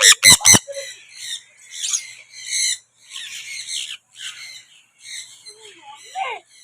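Birds calling over and over in short, high, squawky chirps, about two a second, with a few lower gliding calls near the end. Three sharp knocks sound right at the start.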